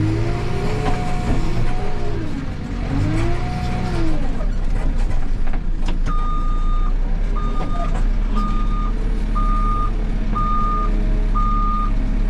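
Backhoe loader's diesel engine revving up and falling back twice as the loader works. About halfway through, a reversing alarm starts, beeping steadily about once a second over the engine.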